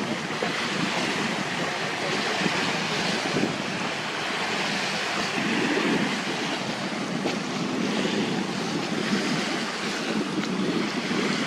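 Steady outdoor rushing noise, with no voice or motor, swelling and easing every couple of seconds.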